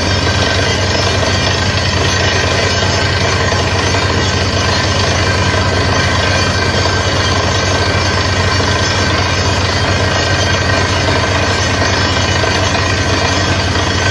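Truck-mounted water-well drilling rig running loud and steady while air drilling. Its engine and compressor noise mixes with the rush of air blowing rock dust out of the borehole.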